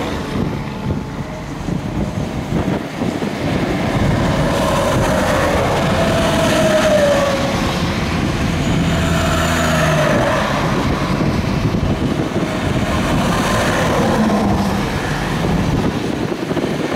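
Highway traffic with semi trucks and cars passing: a steady rush of tyres and engine drone, with the pitch of a passing vehicle dropping as it goes by about six seconds in.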